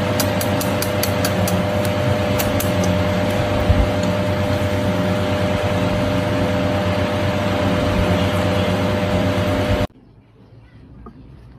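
Steady, loud machine hum with a constant tone, with a quick run of sharp clicks over the first few seconds; it cuts off suddenly near the end.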